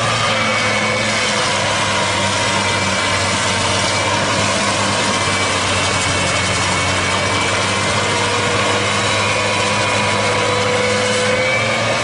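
A machine's engine running steadily with a dense rushing noise and a faint whine that drifts slowly up and down in pitch.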